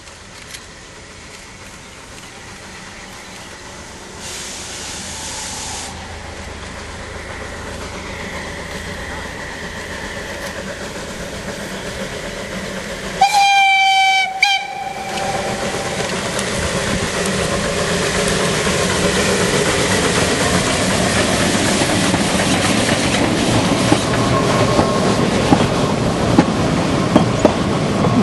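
Narrow-gauge steam locomotive approaching under steam, growing steadily louder. About halfway it sounds its steam whistle in one loud blast of about a second and a half. Near the end the wooden coaches roll past, their wheels clicking over the rail joints.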